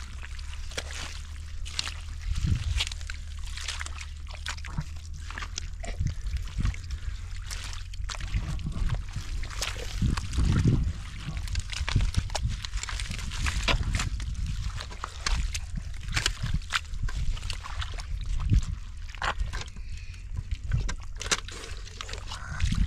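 Shallow water sloshing and trickling, with many irregular short splashes and knocks, from hands working through a bill's strained-down water to catch fish.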